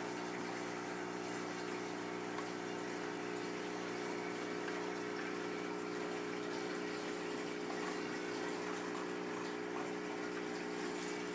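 Aquarium sump pump running, a steady hum of several low tones over a wash of flowing water from the tank's plumbing.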